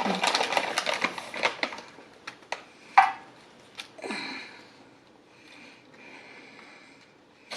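Maple walnut halves and pieces being poured out, a dense rattle of small clicks for about two seconds, then a few scattered clicks and one sharper knock about three seconds in.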